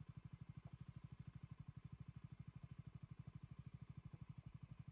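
KTM Duke 200's single-cylinder four-stroke engine idling faintly, an even low throb of about twelve beats a second.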